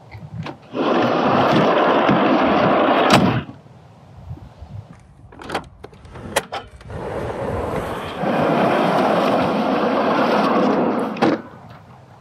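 A heavy plywood truck-bed drawer running on skateboard-bearing slides rolls shut for about three seconds and stops with a knock. A few clicks of a paddle latch follow, then a second drawer rolls out for about four seconds and stops with a knock near the end.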